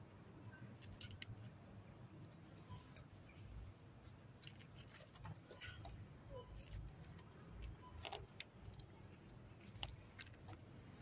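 Cat eating dry kibble: faint, irregular crunches and clicks.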